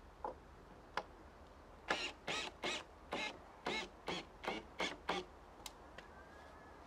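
Hand saw cutting into a log with about nine quick back-and-forth strokes, a little over two a second, after a single click.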